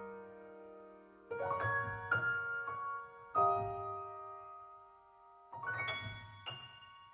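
Soft solo piano background music: slow, sparse chords and single notes struck every second or so and left to ring and fade.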